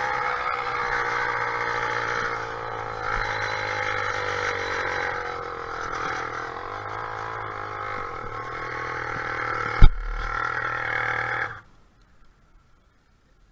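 Small motorized-bicycle engine running as the bike rolls along and slows, with one sharp loud knock about ten seconds in; the engine then cuts off suddenly.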